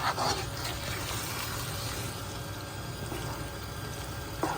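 Chicken and mushroom filling sizzling steadily in a pan, with a few faint stirring clicks over a low hum.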